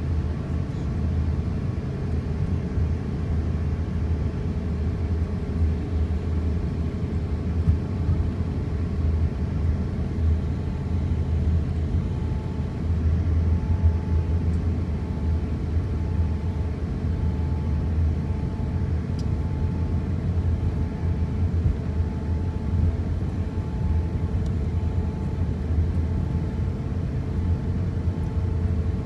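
Cabin noise of a jet airliner taxiing after landing: a steady low rumble from the idling engines and the rolling aircraft, with a faint steady hum over it.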